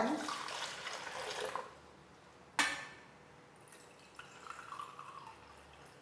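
Water poured from a glass measuring cup into a drip coffee maker's water reservoir, tapering off about a second and a half in. A single sharp knock follows, then a faint second pour of water into the measuring cup.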